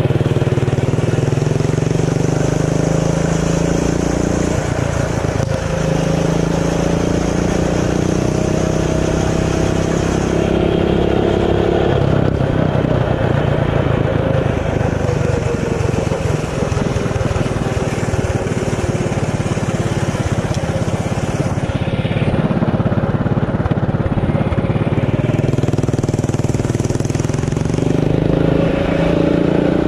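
Mini bike engine running under way, its revs rising and falling as the throttle is opened and eased off several times.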